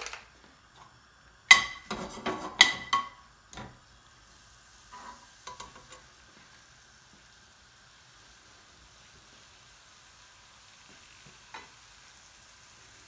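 A long metal spoon stirring chopped garlic in hot oil in an aluminium wok, knocking and ringing against the pan several times in quick succession in the first few seconds, then a couple of lighter knocks. Under it the garlic fries with a faint steady sizzle.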